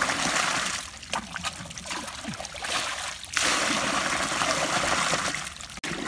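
Muddy water and slurry poured from a bucket onto a plastic crate sieve, splashing through it. There are two pours: one ending about a second in, and a second running from about three and a half seconds until shortly before the end, with small splashes between them.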